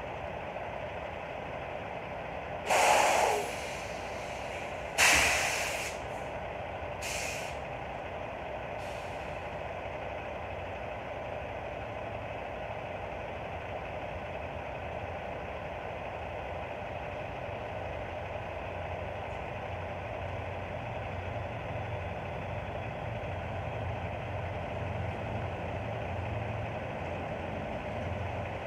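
Semi-truck idling with its air brakes hissing: two loud bursts of released air a few seconds in, then two short fainter hisses. The engine runs on steadily, with a low hum that grows slightly stronger later.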